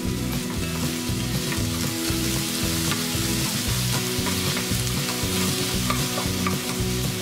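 Chopped onion and bell pepper sizzling in hot oil in a nonstick wok while being stirred with a wooden spoon, a steady frying hiss. Soft background music runs underneath.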